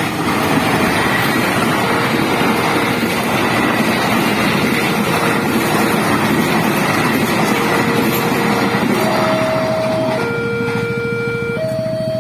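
A train running past a railway level crossing, its rolling noise covering the crossing's electronic warning siren. About ten seconds in the train noise eases, and the siren's melodic tones stand out clearly, stepping between two notes.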